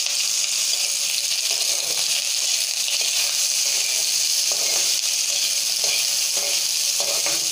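Sliced onions sizzling steadily in hot oil in a kadai, with a metal spatula scraping through them a few times from about four seconds in as they are stirred.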